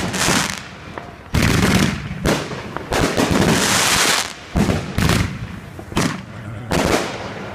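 Aerial fireworks going off: a rapid series of sharp bangs from shells bursting, about one or two a second. About three seconds in there is a longer stretch of hissing crackle from crackling stars.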